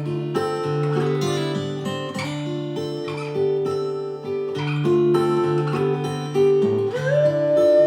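Acoustic guitar playing an instrumental passage of a slow folk song, picked and strummed notes changing steadily. Near the end a held melody note slides in above the guitar.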